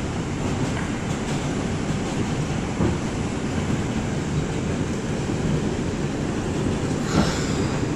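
Inside a New York City subway car running on elevated track: the steady rumble of the moving train. A brief knock comes about seven seconds in.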